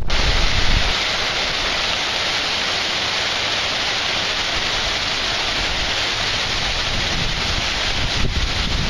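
Hurricane wind and heavy rain: a loud, steady hiss. Wind buffets the microphone with a low rumble for about the first second.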